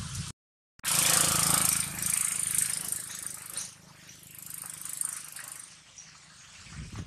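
A motor engine humming under a loud rushing noise. Both are loudest for a couple of seconds after a brief dropout to silence near the start, then fade.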